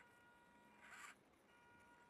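Faint high whine of the Losi 1/24 micro rock crawler's small electric motor and gear drive as it crawls, with a short raspy whirr about a second in.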